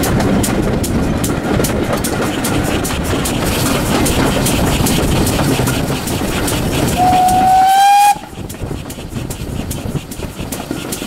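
GWR small Prairie 2-6-2 tank locomotive 5521 and its train running, heard from a carriage: a steady rumble with a regular beat. About seven seconds in the locomotive's steam whistle sounds one high note, rising slightly, for just over a second, and the running noise drops suddenly as it ends.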